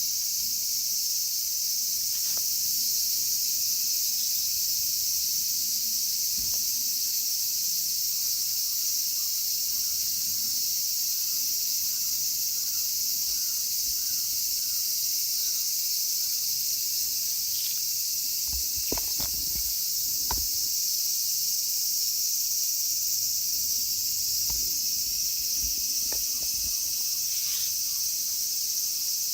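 Cicadas calling in a loud, unbroken chorus, with a few faint knocks near the middle and again later.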